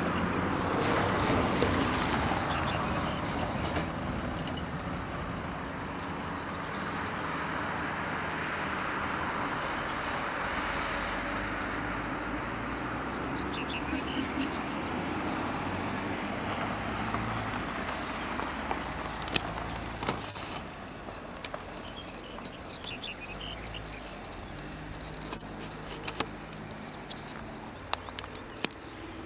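A vehicle engine running steadily, with a noisy haze that eases off after about twenty seconds. Scattered sharp clicks and knocks come in the second half.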